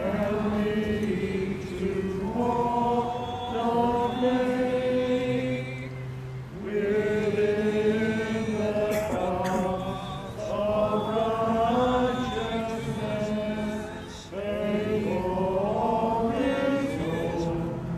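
Crowd of mourners singing a hymn together in sustained, slow phrases, with short breaks between lines about six and fourteen seconds in.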